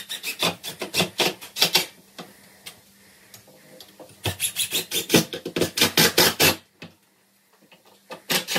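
Cordless drill-driver run in three short bursts of rapid clicking, driving screws that fix a wooden half newel post to the wall.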